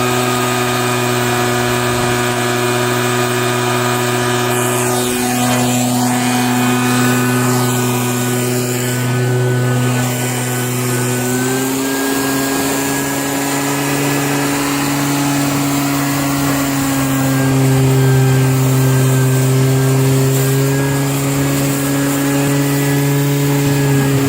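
Homemade drum-can leaf vacuum's motor and fan running steadily with a pitched machine hum, stepping up slightly in pitch about halfway through.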